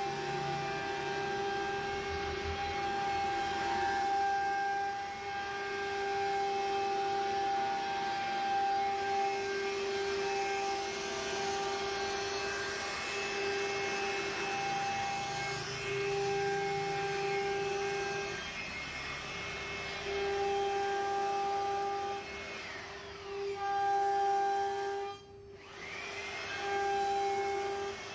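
CNC router spindle running with a steady high whine while its bit routes grooves into a door panel, over a hiss of cutting noise. The whine breaks off briefly every second or two, and about 25 seconds in the sound nearly stops for a moment before the whine rises back up.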